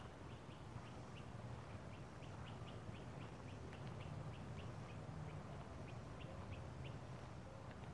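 An animal's rapid string of short, high calls, about three or four a second, over a low steady rumble.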